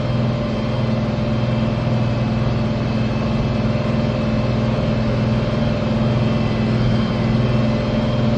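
International Harvester 1566 tractor's six-cylinder diesel engine running steadily under load while pulling a disc, heard from inside the tractor.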